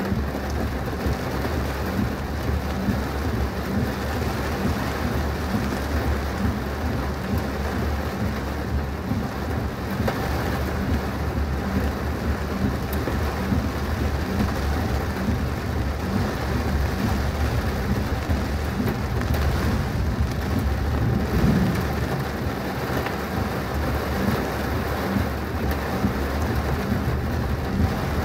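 Heavy rain falling on a moving car, a dense steady patter with many small sharp drop hits and a low rumble underneath.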